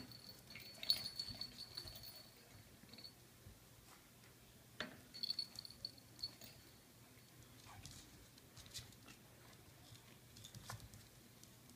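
Coton de Tulear puppies playing: faint scattered taps and scrabbles of small paws and toys, with a brief high jingle twice, about a second in and again near halfway.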